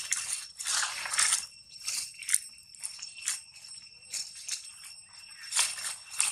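Dry fallen leaves rustling and crunching in irregular bursts, loudest about a second in and again near the end, with a faint steady high ringing beneath.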